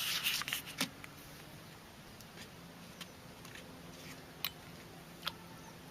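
Faint scattered clicks and taps, several close together in the first second and then single ones a second or so apart, over a low steady hum.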